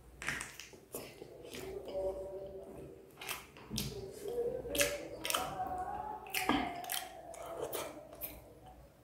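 Wet mouth sounds of a person eating saucy chilli chicken by hand: sharp lip smacks and clicks every second or so, with chewing in between.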